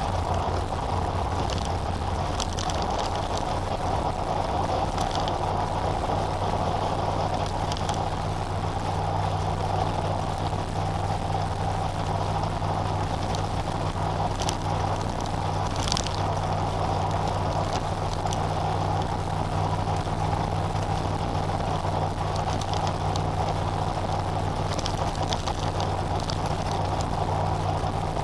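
Car cruising at highway speed, about 110 km/h, heard from inside the cabin: a steady low engine drone under even tyre and road noise, with a few faint ticks now and then.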